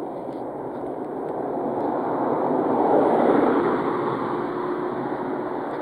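A car passing close by on the road, its tyre and engine noise swelling to a peak about three seconds in and then fading, with the next vehicle approaching near the end.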